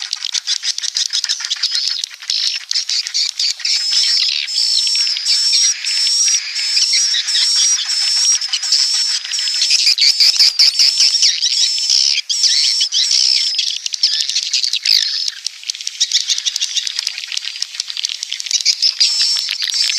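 Swiftlets chittering and twittering without a break: a high, buzzy trill laced with rapid clicks. This is a recorded 'inap' (roosting) call, the kind played in swiftlet houses to draw the birds in to roost.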